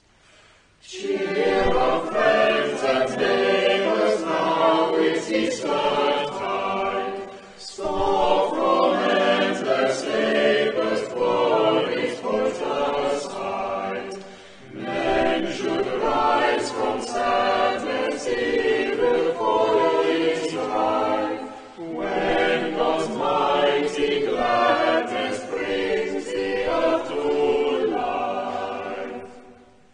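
Church choir of children and adult voices singing a hymn or anthem, in four phrases with short breaks between them, starting about a second in.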